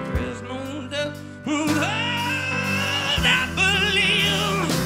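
Live acoustic rock song: a singer holding long, wavering notes with heavy vibrato over a resonator guitar.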